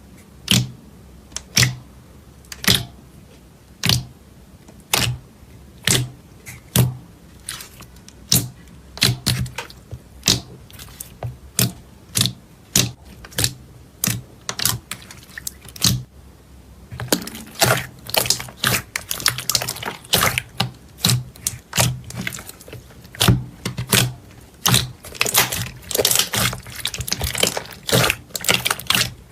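Slime being poked and squeezed by hand, giving sharp wet clicks and pops, spaced about a second apart at first, then coming thick and crackly from about halfway through.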